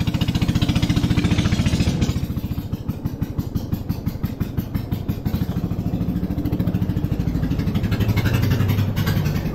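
A small fishing boat's engine running with a fast, even putter. It eases off about two seconds in and picks up again near the end.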